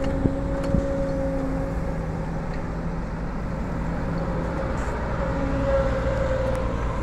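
Kobelco SK140 hydraulic excavator's diesel engine running under load as it digs and swings through crushed stone, with steady tones that shift as the hydraulics work the boom and bucket. A couple of sharp clicks near the start.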